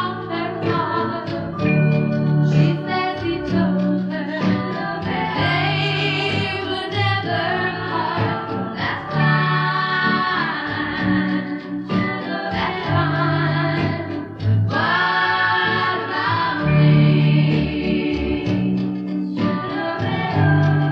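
1964 pop record: voices singing in harmony over a band with a steady, repeating bass line.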